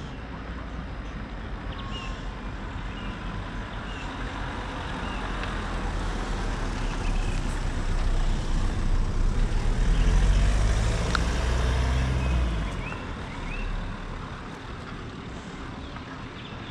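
A road vehicle passing by, getting louder to a peak about ten seconds in and fading away soon after, over a steady low outdoor rumble. A few small birds chirp now and then.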